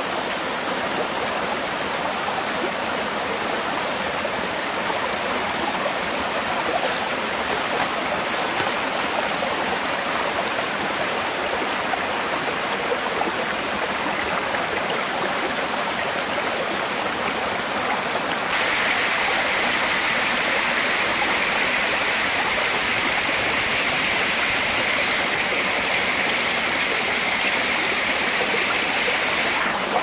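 Waterfall and mountain stream cascading over rocks: a steady rushing of water. About two-thirds of the way through it turns louder and hissier, then drops back just before the end.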